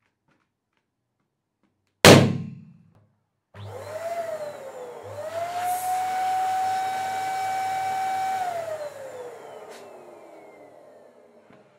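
A latex balloon bursts with one sharp bang about two seconds in. Then an electric balloon pump starts and runs with a hum and a steady whine while it inflates the next balloon, and the whine falls in pitch and fades as the pump winds down near the end.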